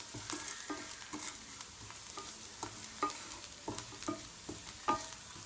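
Wooden spatula stirring sliced onions and spices frying in ghee in a pan: irregular scrapes and knocks against the pan over a steady sizzle.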